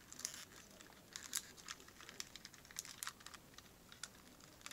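Faint, irregular light clicks and taps of a small plastic toy tanker truck being handled and turned over in the fingers.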